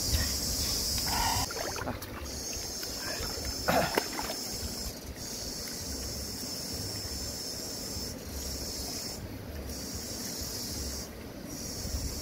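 Slurping as cooked snails are sucked out of their shells: short slurps in the first second or so and a loud one about four seconds in. A steady high hiss runs underneath.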